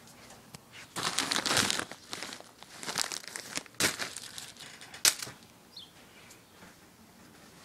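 A clear plastic bag crinkling and small firework tubes rustling as they are handled. The sound comes in several bursts: a longer one about a second in, then shorter ones around three and four seconds in, and a sharp crackle just after five seconds.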